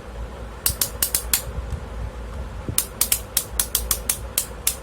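Sharp clicks from an HTC DM-85T multimeter being handled. A short run of about five comes in the first half, then after a pause a quicker run of about a dozen, about six a second.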